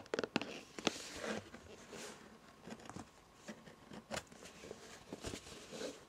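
Irregular light taps and clicks, such as fingernails tapping, mixed with soft rustling from handling objects.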